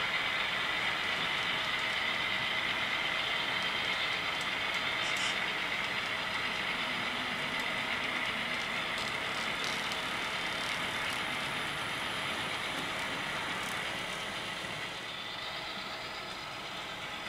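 Model train of covered hopper cars rolling along the layout track: a steady rolling whir of the cars' wheels on the rails, a little quieter near the end.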